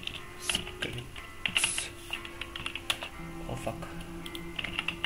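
Computer keyboard keys being typed in scattered bursts of clicks, over faint steady background music.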